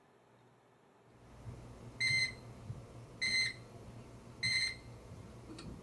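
Desco 19241 Body Voltage Monitor sounding its alarm: three short, high electronic beeps about 1.2 seconds apart. The beeps signal that the tool ground circuit has been disconnected.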